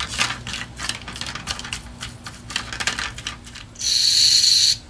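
A small brush scrubs a carburetor part in a little jar of solvent, with quick scratchy strokes for about three seconds. Near the end, an aerosol cleaner is sprayed through its straw onto the lawn mower's carburetor body, a loud steady hiss lasting nearly a second.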